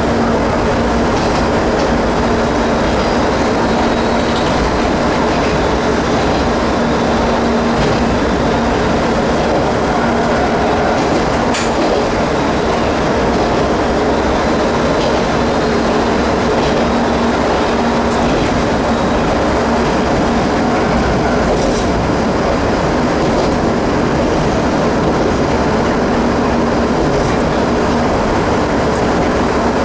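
Ex-JNR KiHa 30-series diesel railcar running along the line, heard inside its driver's cab: a steady engine and running-gear rumble with a constant hum and the wheels on the rails. There are a couple of sharp clicks, about halfway through and about two-thirds through.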